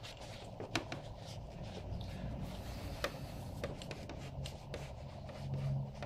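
Cloth towel rubbing and wiping over a motorcycle's front brake caliper, with scattered small clicks and taps as the hand works around the caliper. A low steady hum comes in near the end.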